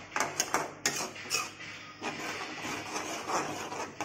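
Metal spatula stirring a saucy corn curry in a metal kadhai, clinking and scraping against the pan. There are several sharp clinks in the first second and a half, then softer, steady scraping.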